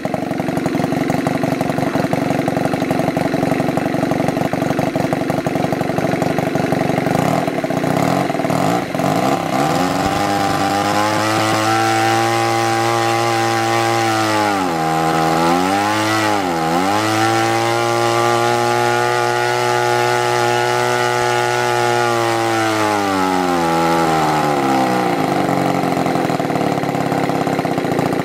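Kavan FK 50 Mk II flat-twin four-stroke model aircraft engine, converted to petrol with spark ignition, running on its first run after a complete rebuild with all bearings replaced. It idles at about 1,000 rpm, then speeds up about ten seconds in and holds a higher steady speed with two brief dips, before settling back to idle near the end.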